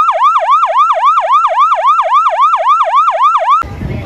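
Siren sound effect: a fast yelping wail that swoops down and up in pitch about three and a half times a second. It cuts off suddenly about three and a half seconds in.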